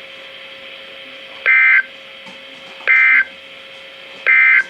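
NOAA Weather Radio end-of-message signal from a Reecom R-1630 weather radio receiver: three short, loud bursts of SAME digital data tones about 1.4 s apart, over a steady hiss and hum. The bursts mark the end of the required weekly test message.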